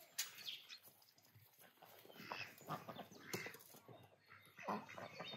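Faint farmyard sounds: scattered short animal calls from dogs and domestic ducks, with a few light knocks.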